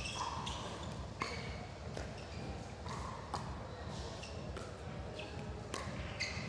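Pickleball rally: sharp pops of paddles hitting the plastic ball about once every second or so, with short high squeaks of shoes on the court in between, over a steady low crowd-and-hall background.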